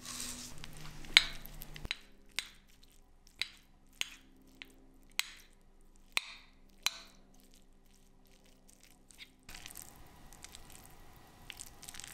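Sesame seeds rattling out of a shaker onto rice. Then a metal spoon clinks against a ceramic bowl about seven times while breaking up soft-boiled eggs in the rice. Near the end come soft squishing and scraping sounds as the rice is stirred.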